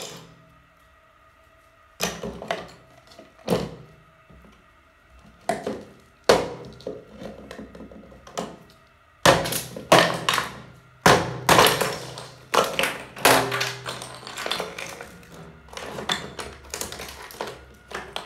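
Claw hammer knocking on a block of ice on a wooden cutting board, cracking it apart: a few spaced blows at first, then a quicker run of strikes from about nine seconds in.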